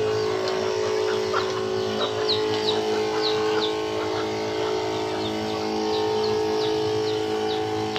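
Chicks peeping in quick, high, falling chirps over a steady hum.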